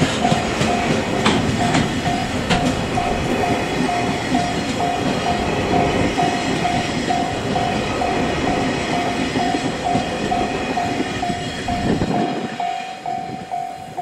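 Koki container flat wagons of a freight train rolling past, with wheel clatter and a few sharp clicks over the rail joints, while a level-crossing alarm bell dings steadily about twice a second. The rolling noise eases off near the end, as the wagons move away, while the bell keeps ringing.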